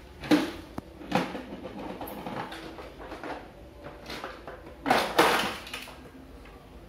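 Large plastic toy dump truck knocking and scraping on a tiled floor, with a few sharp knocks early and a louder clatter about five seconds in as it tips onto its side and small plastic toys spill out.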